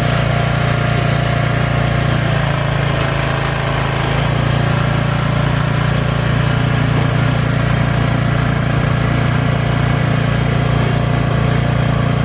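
An engine running steadily at one constant speed, with a deep even hum and no revving.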